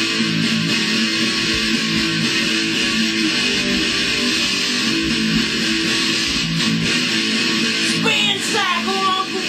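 Electric guitar playing metal, loud and unbroken.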